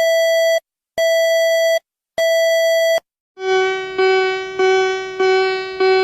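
Synthesized electronic alarm tones of the kind used in emergency alerts: three long, even, buzzy beeps, then a lower tone repeated about five times in a steady rhythm, each repeat fading before the next.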